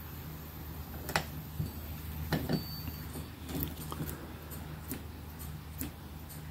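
Wilesco D52 double-acting marine steam engine running on low-pressure compressed air: a steady low hum with scattered light clicks, about one a second.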